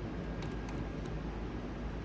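Steady background hiss with a few faint, light clicks about half a second and one second in.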